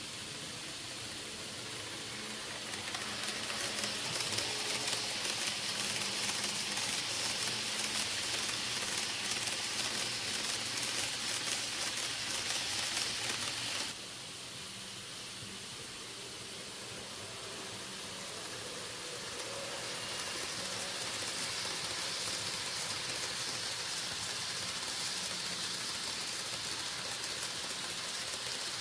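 N-gauge model trains running on the layout's track: a steady rolling hiss and rattle of small wheels and motors. It grows louder about three seconds in, drops suddenly about halfway, then builds again.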